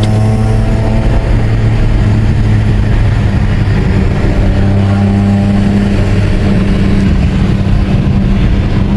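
BMW M3 race car engine running loud at fairly steady revs, its pitch holding with only slight rises and falls.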